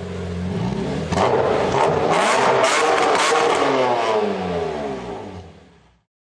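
Supercharged BMW M3 E46 straight-six revving. It gets louder about a second in, then the revs fall away and the sound fades out near the end.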